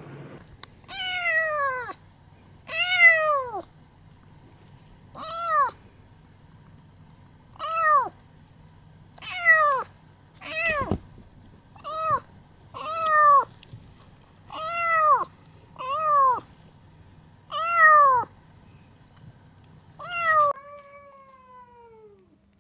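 A cat meowing over and over: about a dozen separate meows, each rising and then falling in pitch, one to two seconds apart.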